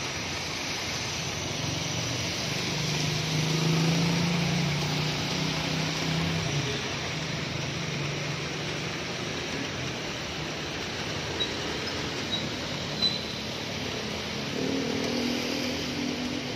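Steady rain hissing on a wet street, with passing traffic. A vehicle engine hums low and is loudest about four seconds in; another engine comes through near the end.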